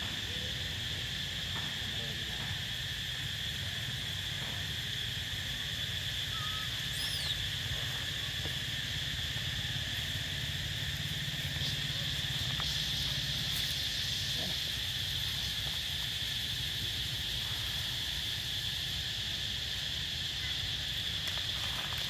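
Steady, high-pitched drone of an insect chorus, with a low rumble underneath.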